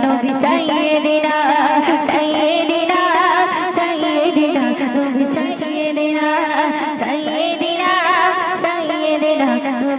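A woman's voice singing a Bengali Islamic gazal into a microphone, with a wavering, heavily ornamented melody over a steady low held note.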